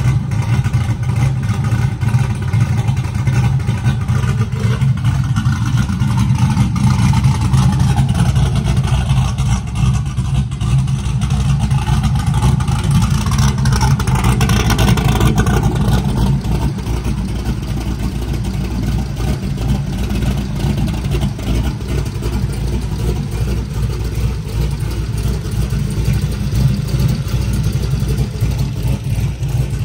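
Big-turbo 5.3 L V8 with a Stage 3 BTR turbo cam idling steadily, a deep engine sound, heard first at the rear exhaust and then over the open engine bay.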